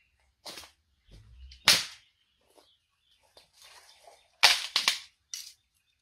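Sharp cracks and knocks of wood from fallen tree branches being worked: a loud one about two seconds in, then a quick run of four near the end.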